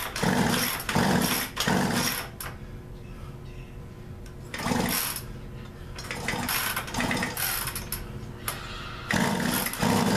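Poulan Pro two-stroke chainsaw, with its covers off, being pull-started: short bursts as the recoil starter cranks the engine, which does not settle into running. The pulls come in a quick run at first, once about five seconds in, and in another run near the end.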